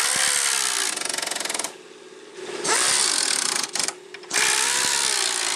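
Socket ratchet clicking rapidly in three runs of a second or so each, tightening the stabilizer-bar bracket bolts.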